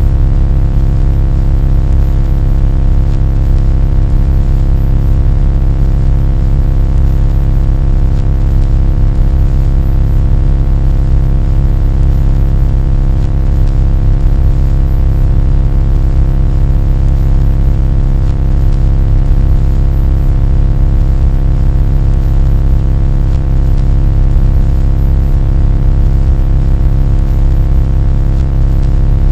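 A loud, steady, deep drone with a constant hum of several steady tones on top, unchanging throughout.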